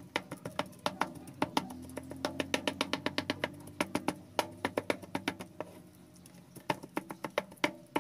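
Kitchen knife chopping ripe saba bananas on a cutting board: quick, irregular taps of the blade striking the board, several a second, thinning out briefly about six seconds in, over a low steady hum.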